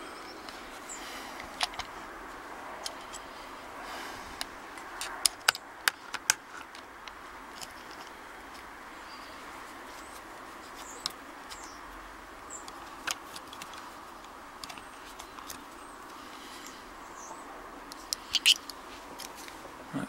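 Sharp metallic clicks and taps as the parts of a steel padlock are handled and the top plate is fitted onto its body, clustered a few seconds in and again near the end, over a steady background hiss.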